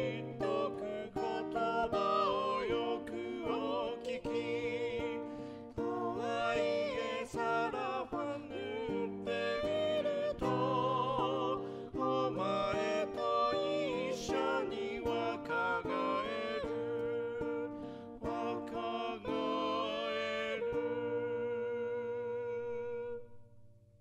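A song: a singing voice with vibrato over plucked acoustic guitar accompaniment, fading out near the end.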